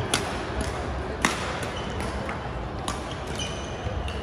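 Badminton rally: sharp pocks of rackets striking the shuttlecock, a second or more apart, with short squeaks of court shoes on the hall floor.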